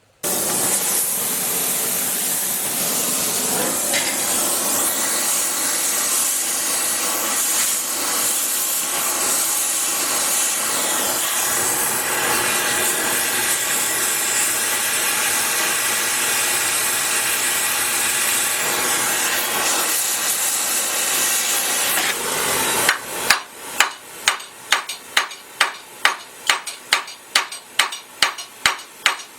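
A gas torch hisses steadily, heating a steel frame rivet to bucking temperature. About 23 seconds in it gives way to rapid hammer blows, about three a second, driving and setting the hot rivet against heavy steel backing.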